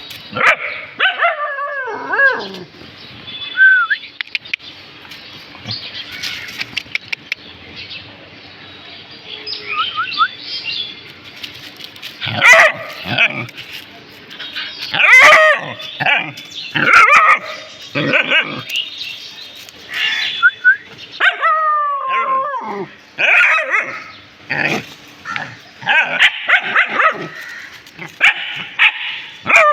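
Dogs barking and whining: high whines that slide down in pitch, then from about twelve seconds in, frequent loud barks and yips in quick runs.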